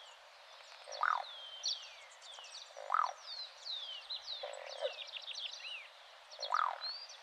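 Croaking ground dove (Columbina cruziana) calling: four short, low croaks about two seconds apart, each rising then falling, with high thin falling whistles of other small birds behind them.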